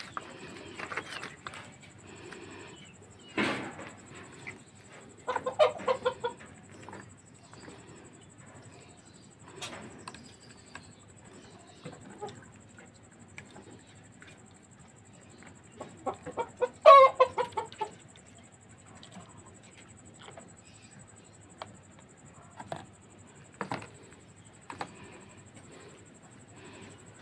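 A chicken clucking and squawking in a few short bursts, loudest about two-thirds of the way through. A few knocks are heard in between.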